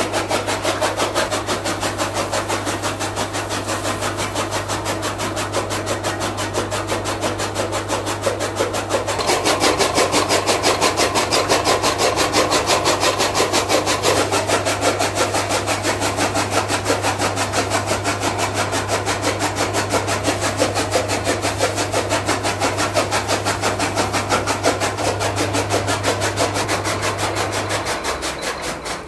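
Electric chaff cutter chopping green fodder stalks: a rapid, even run of chopping strokes from the flywheel-driven blades over the steady hum of its electric motor. The chopping grows louder for a few seconds in the middle, and the motor hum stops near the end.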